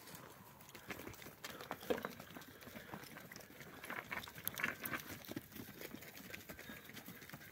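Goats' hooves tapping and scuffing on stony ground, a scattered run of light clicks.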